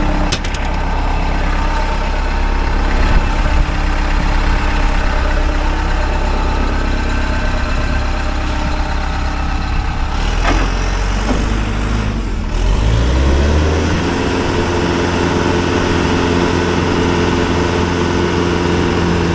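Telehandler's diesel engine idling, then revved up about two-thirds of the way through and held at a higher steady speed as it drives the hydraulics to extend the boom.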